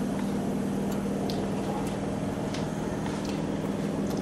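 A steady low mechanical hum, like a kitchen appliance running, with a few faint clicks over it.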